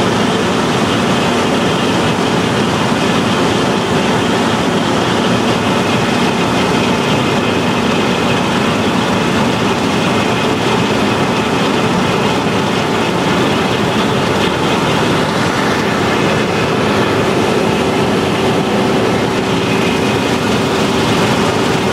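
Combine harvester running steadily at full work, a loud, unbroken machine noise, while it unloads grain through its auger spout into a trailer alongside.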